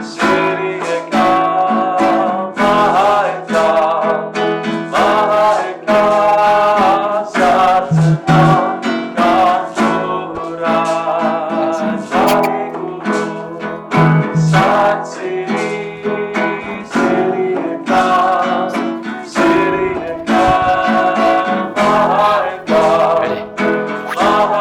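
Music: an acoustic guitar strummed in a steady rhythm, with a singing voice over it.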